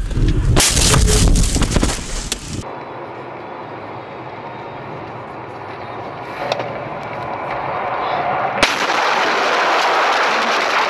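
Car collision: about two seconds of loud crunching impacts. Then steady road and wind noise inside a car at highway speed, and from about nine seconds in a sudden loud rushing hiss as snow sprays over the car and its windshield.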